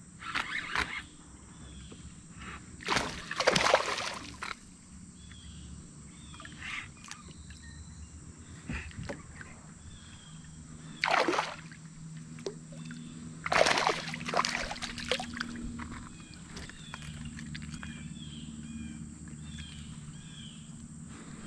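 A hooked smallmouth bass splashing and thrashing at the surface beside a kayak as it is reeled in and landed, in several loud sudden bursts of splashing. Faint short chirps run underneath.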